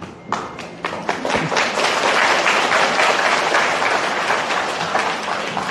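Audience applauding: a few separate claps at first, quickly swelling into dense, steady applause that thins out near the end.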